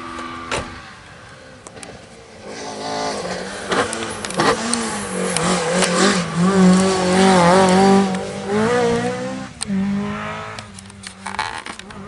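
Mk2 Ford Escort rally car coming through at speed, its engine revving hard with the pitch rising and falling as it changes gear and takes the junction. It builds up from a few seconds in, is loudest about halfway through, and fades away near the end.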